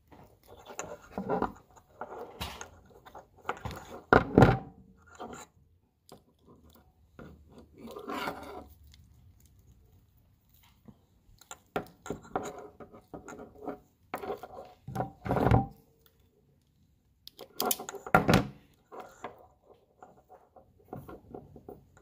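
Rustling, scraping and clicking of a car-stereo wiring harness handled close up, as insulated wires and plastic connectors are rubbed and pushed together. Several louder knocks stand out among the quieter rustling.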